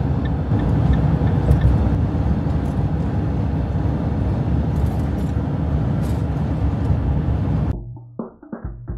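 Steady road and engine noise heard inside a campervan's cab driving along a motorway. Near the end it cuts off abruptly and a run of drum hits begins.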